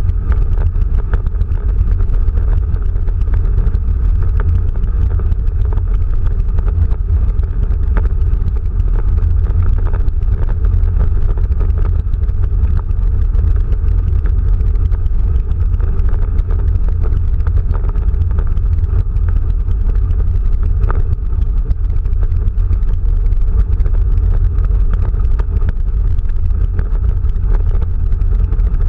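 Steady low rumble of a Quest velomobile rolling along a gravel path: the tyres' road noise carried through its shell. It stays loud throughout, with a few faint clicks.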